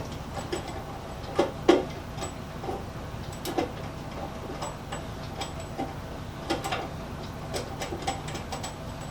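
Irregular light knocks and clicks, with the two loudest close together about a second and a half in, over a steady low hum.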